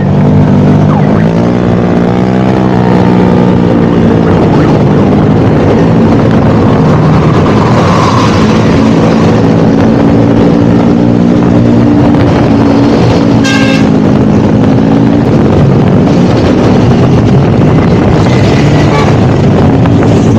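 Modified automatic scooter engines with loud aftermarket exhausts running while riding, the engine note rising and settling with the throttle, over road and wind noise. A brief high tone sounds about thirteen seconds in.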